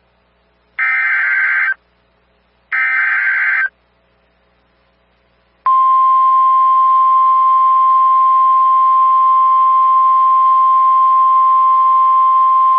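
NOAA Weather Radio emergency alert: two one-second bursts of shrill SAME digital header data about two seconds apart. About six seconds in comes the steady 1050 Hz Weather Radio warning alarm tone, the signal that a warning, here a severe thunderstorm warning, is about to be read.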